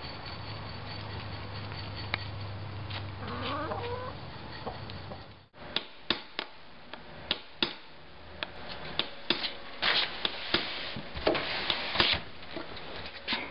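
Chickens in a barn over a steady low hum, with one hen's short call about three seconds in. After a cut, irregular sharp taps and a few scrapes on a window pane.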